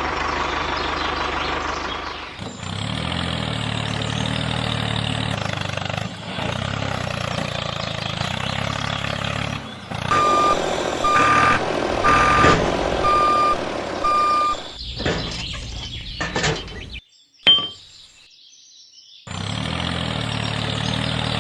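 Miniature model vehicle running with a steady engine sound. From about halfway it gives a string of about five evenly spaced high beeps like a reversing alarm. Near the end the sound cuts out briefly with a click, then the engine sound resumes.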